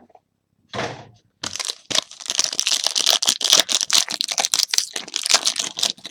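A trading card pack's wrapper being torn open and crinkled, a short rip about a second in, then a run of rapid crinkling.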